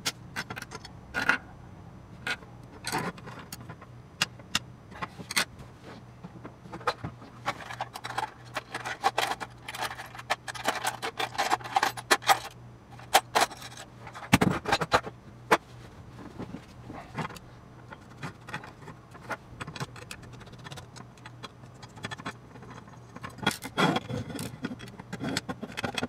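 Small brass gears and metal parts handled and set down on a wooden desk while an aluminium gear plate is taken apart: irregular light metallic clinks and clicks, busiest in the middle.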